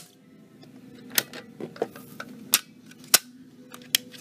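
Wheelock AS strobe's flash tube firing with sharp clicks, four times at uneven intervals. The owner takes these strobe flashes for the unit's power-down sound.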